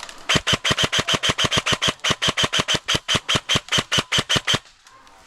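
Airsoft gun firing a long, even string of about thirty shots, some six or seven a second, stopping just over four seconds in.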